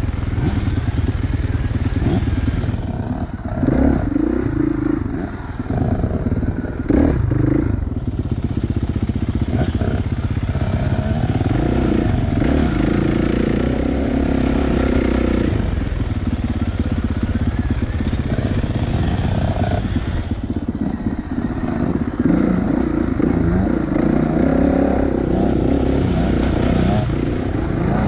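Kawasaki KX450F dirt bike's single-cylinder four-stroke engine running at trail speed, the throttle opening and closing as it rides rough singletrack.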